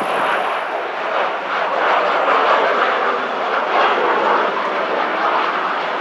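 Jet engines of a twin-engine airliner landing, a steady rushing noise that swells and eases slightly.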